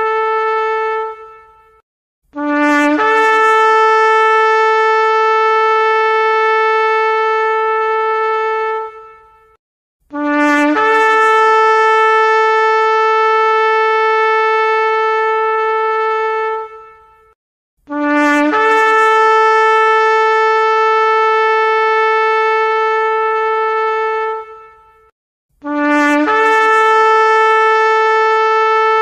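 Long, loud horn blasts repeated about every eight seconds: each opens with a brief lower note that jumps up to a higher one, held steady for about six seconds before cutting off. One blast ends about a second in, three full blasts follow, and another begins near the end.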